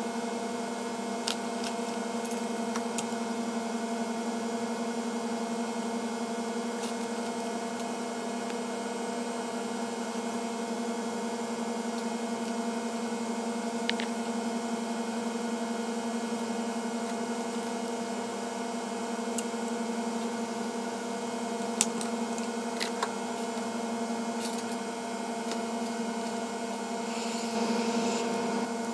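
Hot air rework station's blower running with a steady hum, used to desolder a small capacitor from a laptop logic board; a few light clicks from tools on the board, and a short rise of hissing air near the end.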